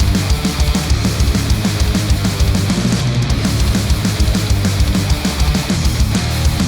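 Heavy rock music with fast, dense drumming, distorted guitar and a steady bass line, played back through studio headphones and picked up by measurement microphones.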